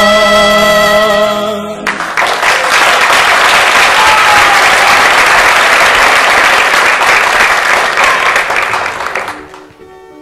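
A held musical chord ends about two seconds in and is followed by a burst of audience applause lasting about seven seconds, which fades out as soft music begins near the end.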